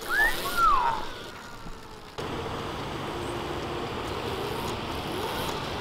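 Electric trials motorcycle being ridden. In the first second its motor gives a short whine that rises and falls in pitch with the throttle. About two seconds in, a steady low motor and drivetrain hum with rolling noise starts abruptly.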